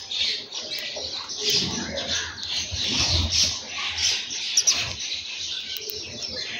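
A flock of house sparrows chirping busily and continuously, many short overlapping chirps at once.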